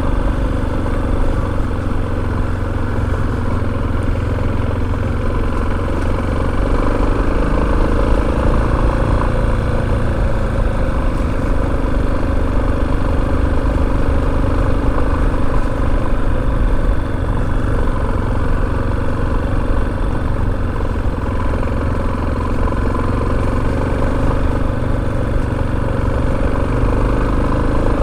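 Motorcycle engine running steadily while riding, its pitch rising and falling a little.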